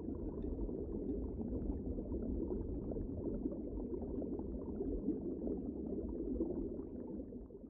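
Steady bubbling water, like an underwater bubble ambience, fading out near the end.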